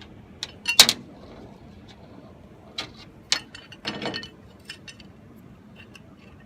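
Small metal parts clicking and clinking by hand as nuts are started onto carriage bolts in a cast steel chainsaw-mill bracket: a few sharp irregular clinks, the loudest pair just under a second in.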